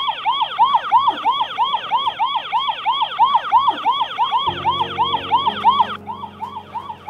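Small electronic alarm box worn on a lanyard as an elimination necklace, sounding a siren-like wail at about four rising-and-falling sweeps a second to signal that its wearer is eliminated. It drops in level about six seconds in.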